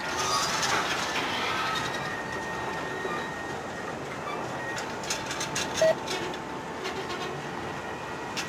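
Freight cars of a work train rolling slowly along the track, with faint steady wheel squeal and a cluster of clicks over the rail more than halfway through. A brief sharp squeak just before six seconds in is the loudest sound.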